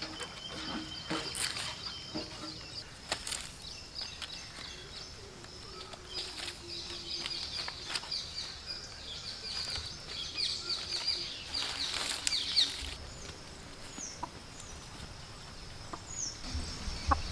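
Green coconut palm fronds rustling and crackling as they are handled and woven by hand, in a run of short irregular clicks, busiest in the middle.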